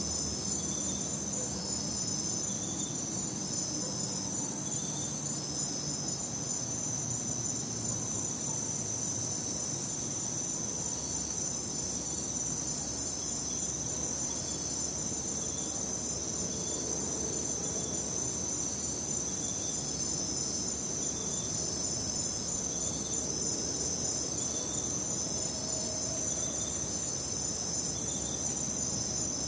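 Night crickets chirring steadily in a high shrill chorus, with short repeated notes from another caller every second or two and a low, distant rumble underneath.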